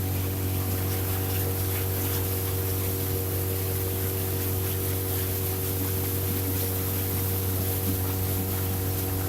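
Boat engine running steadily, a constant low drone with a hum above it, heard from aboard with a hiss of water and wind.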